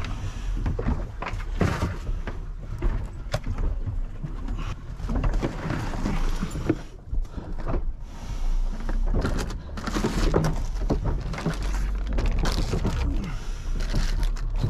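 Clatter and rustle of gear being rummaged through in a small boat's cabin: plastic boxes and cases knocking and shifting, clothing and bags shuffled, while a pack of marine flares is dug out. A low steady rumble runs underneath.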